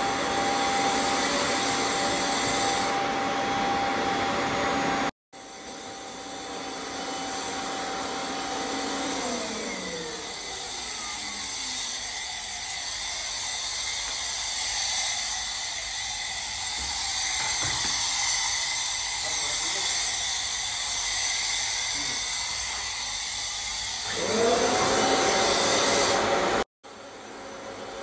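Upholstery-cleaning vacuum motor running with a steady whine, then winding down about ten seconds in. A steady hiss carries on while a hand-held sprayer puffs mist onto the sofa, and the motor spins back up near the end.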